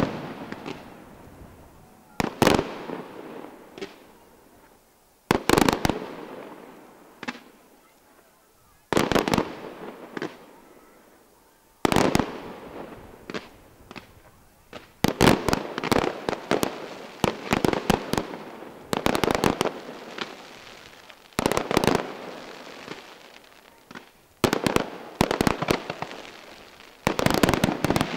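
Aerial firework shells bursting in groups of sharp bangs about every three seconds, each group trailing off in an echoing rumble. The bangs come thicker and faster in the second half.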